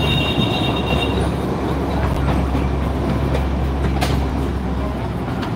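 Darjeeling Himalayan Railway toy train running, heard from on board: a steady low rumble of the moving carriage with wheel clatter and scattered knocks, the sharpest about four seconds in. A brief high tone sounds in the first second.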